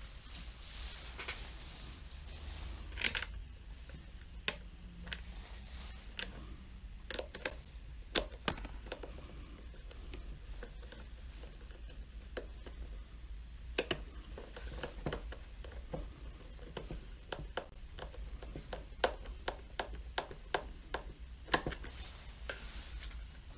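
Scattered light clicks and knocks of hands handling and fitting parts on a plastic blender base, coming in a quicker run of clicks in the second half, over a faint steady low hum.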